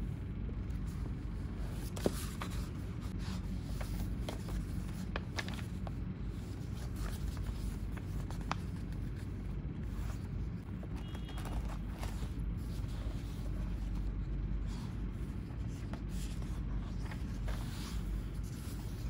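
Quiet desk sounds of paper being handled: pages of a thick printed book being turned and rustled, with scattered light taps and clicks, one sharper click about two seconds in, over a steady low room hum.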